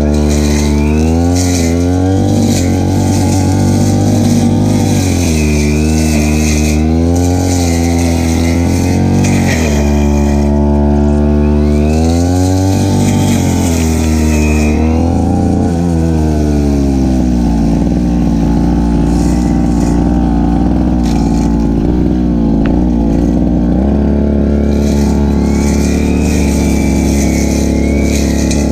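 Stihl FR3001 brush cutter engine running, its pitch rising and falling repeatedly as the throttle and cutting load change, then holding a steadier high speed through the second half.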